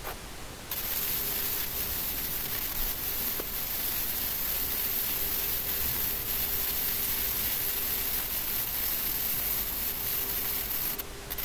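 MIG welding arc on a steel LPG propane cylinder, a steady hiss starting about a second in and cutting out just before the end.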